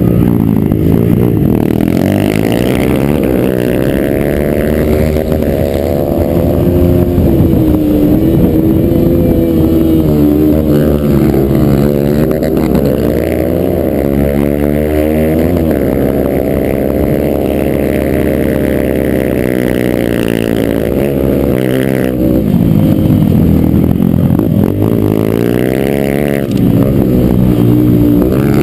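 Yamaha TT-R125 dirt bike's single-cylinder four-stroke engine, heard close up, revving up and dropping back again and again as it is ridden hard through the corners and straights of a dirt track.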